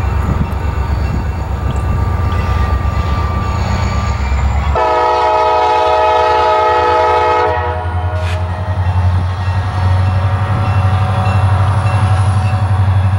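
Wheeling & Lake Erie diesel freight locomotive passing close by with a pulsing low engine rumble, its air horn sounding for the grade crossing: a loud, steady horn chord for about three seconds starting about five seconds in. Afterwards the engine rumble and the rolling of the loaded hopper cars carry on.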